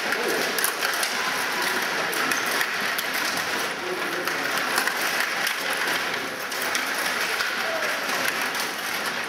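Stiga table hockey in play: sharp plastic clicks and clacks of the puck and the rod-driven players, many in quick succession, over a steady murmur of voices in a busy hall.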